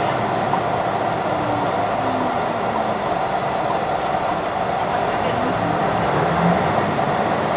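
HOT7000-series diesel railcar running at speed, heard from inside the front of the train: a steady drone of engine and wheels on rail.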